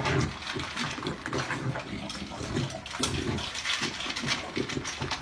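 A puppy eating dry kibble from a steel bowl: rapid, irregular crunching and clicking.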